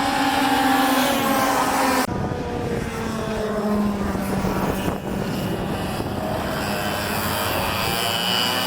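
Go-kart engines running, the buzzing engine note falling and rising in pitch as the karts rev and pass, with abrupt jumps between shots about two and five seconds in.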